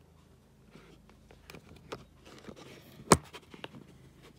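Handling noise as a camera that won't stay upright is fumbled with and repositioned: scattered small clicks and scrapes, with one sharp knock about three seconds in.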